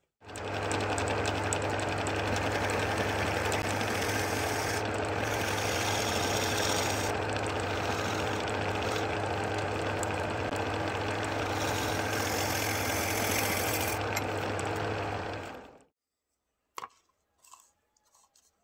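Wood lathe running with a steady motor hum under a hiss that swells and dips, the workpiece spinning between centres; it shuts off about three-quarters of the way through, leaving a few faint clicks of handling.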